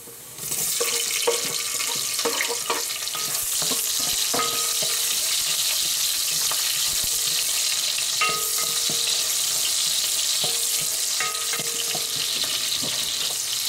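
Chopped onions hitting hot oil in a stainless steel pot start sizzling about half a second in, then keep up a steady sizzle while a spatula stirs them, with many clicks and scrapes against the pot. This is the sauté stage, onions frying in preheated oil with ginger.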